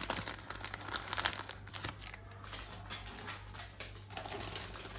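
Packaging crinkling and rustling in quick, irregular crackles as a jewellery piece is unwrapped.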